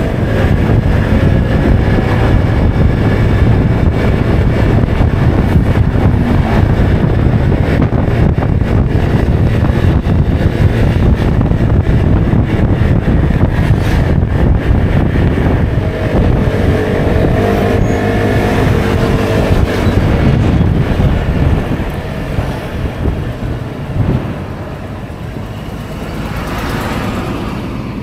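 Honda Forza 125 scooter's single-cylinder four-stroke engine running under way, with heavy wind rush on the microphone. The engine note rises and falls about halfway through, and the sound drops to a lower level near the end as the scooter slows.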